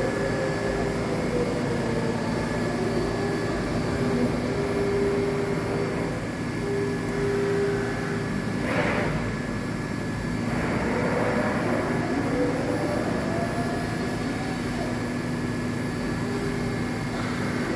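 EDEL CP 4020 five-axis portal milling machine running: a steady machine hum with a whine that slowly rises and falls in pitch, and a brief rushing sweep about nine seconds in.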